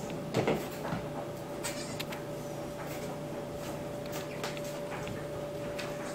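Newborn goat kids' small hooves tapping and scrabbling on a wooden floor as they tussle over a teddy bear, with scattered knocks and clicks. A steady hum runs underneath.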